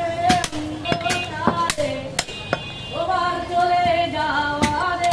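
A butcher's cleaver chopping goat meat on a wooden log block, a series of sharp, irregular chops. Music with a singing voice plays throughout.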